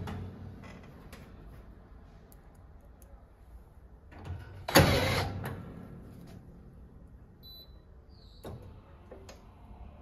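Craftsman cordless drill driving a screw home in one short whirring burst about five seconds in, fading quickly. Faint clicks and a brief high beep follow near the end.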